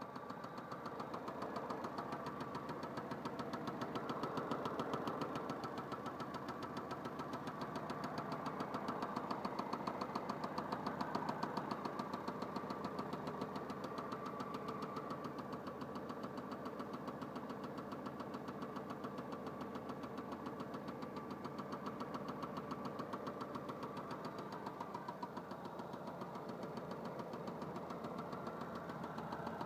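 Opel Vectra A 1.8 single-point-injection four-cylinder engine idling with a rapid, regular knock from inside the engine, whose cause the owner is asking about.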